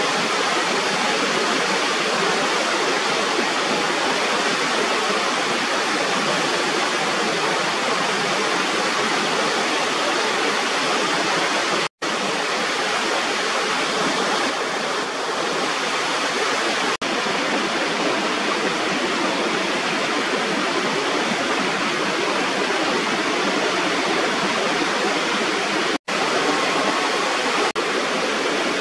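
Steady rush of water pouring over a small waterfall at a rubber weir on an irrigation channel. The sound drops out for an instant twice, about twelve and twenty-six seconds in.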